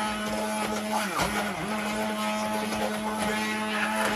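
Electric stick blender running steadily, puréeing a pan of roasted red peppers and onions into sauce. Its motor pitch dips briefly twice, just after a second in, as the blade takes the load.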